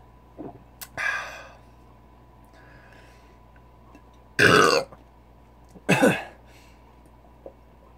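A man belching twice after gulping carbonated malt liquor: a loud, rough burp about four and a half seconds in and a second, shorter one at about six seconds.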